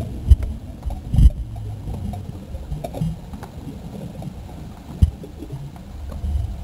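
Seawater sloshing and rumbling around an underwater camera held just below the surface, with dull knocks against the camera: a sharp one about a third of a second in, another about a second later, and one about five seconds in.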